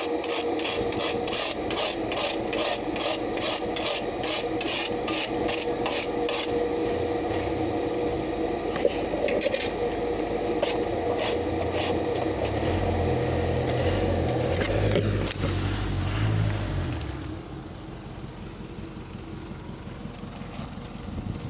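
Rhythmic scraping strokes on metal, about three a second, over a steady hum. The strokes slow after about six seconds, and the sound drops away about seventeen seconds in.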